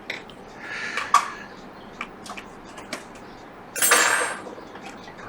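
Small metallic clicks and taps of hand tools on a circuit board, as a component is removed from a donor logic board, with a short hiss about four seconds in.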